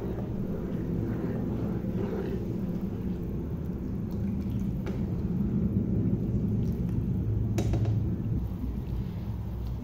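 Masala gravy simmering in a nonstick pan as it is stirred with a spatula: a steady low rumble with a few light clicks of the spatula against the pan.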